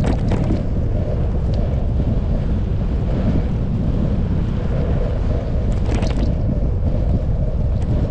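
Wind rushing over the microphone of a camera riding on a moving bicycle: a loud, steady low rumble. Two brief rattles come through, one at the start and one about six seconds in.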